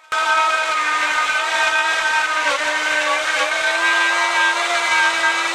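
Electric router on a router lathe running at full speed while cutting a spiral flute in a spalted beech blank: a loud, steady high whine whose pitch dips briefly twice.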